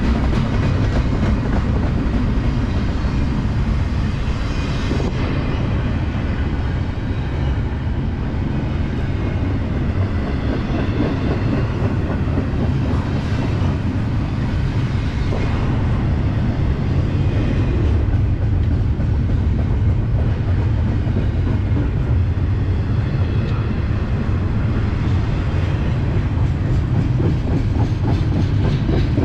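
Cars of a mixed freight train rolling past close by: a steady heavy rumble of wheels on rail with continuous rapid clicking.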